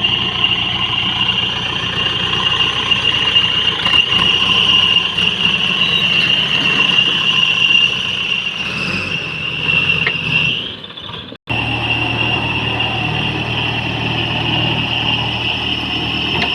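Diesel engine of a JCB 3DX backhoe loader running steadily under work, with a constant high-pitched whine over the engine note; the sound drops out for an instant about eleven seconds in, then the engine carries on.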